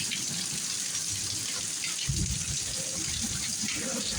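Heavy rain pouring down in a steady hiss, with a brief low rumble about two seconds in.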